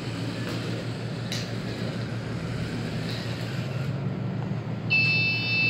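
Small DC gear motors of an Arduino robot car whirring steadily, with a couple of light clicks. Near the end an electronic buzzer starts a loud, steady high-pitched tone.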